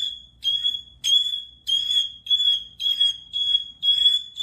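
A bird calling over and over with a short, high-pitched note, about two calls a second. Each note holds one steady pitch and fades quickly, an annoyingly insistent repeated call.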